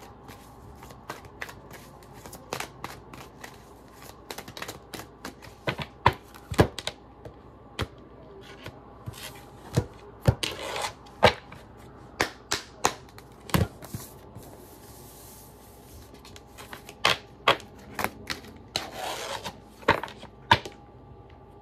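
Tarot cards being shuffled and handled on a wooden desk: irregular clicks and taps of cards and the deck knocking on the desk, with a few short rustling shuffles about ten seconds in and again near the end.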